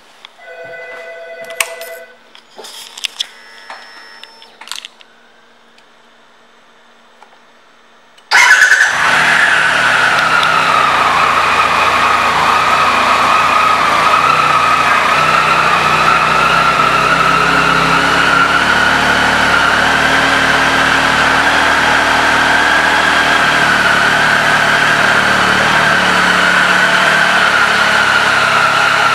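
A few short beeps and clicks, then about eight seconds in the 2017 Triumph Tiger Explorer XRT's three-cylinder engine is started. It flares briefly and settles into a steady idle with a constant whine over the exhaust note.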